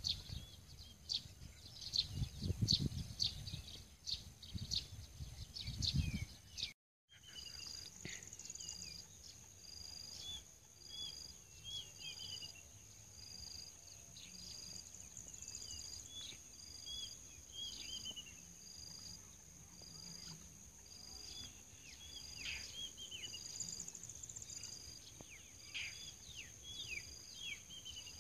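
Small birds chirping with short high calls, over a steady high insect whine and a high note repeating about every two-thirds of a second. For the first seven seconds a low rumbling noise lies under the calls, then the sound drops out for a moment.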